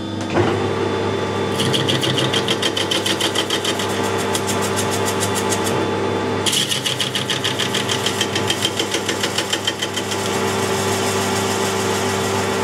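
Metal lathe starting up and running while a chipped tool turns down the outside of a hardened steel bearing ring. The cut comes as a fast, rhythmic pulsing with a high ring, breaking off briefly about six seconds in and settling into a steadier sound near the end.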